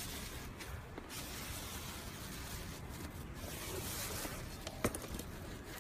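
Foamy pink slime squishing as a hand presses and kneads it in a plastic tub: a steady soft squelching noise, with one sharp click near the end.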